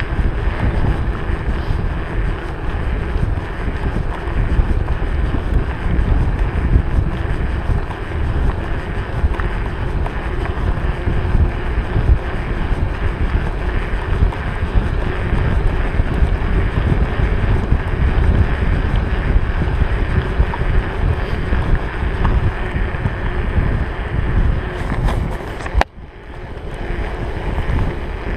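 Steady wind rushing over the microphone of a camera on a mountain bike coasting fast downhill on asphalt, with tyre and road noise underneath. Near the end a sharp click is followed by a brief dip in the noise.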